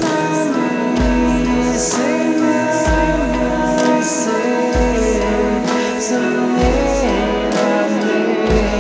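Slow background music: a deep bass note about every two seconds under a gliding, sustained melody line.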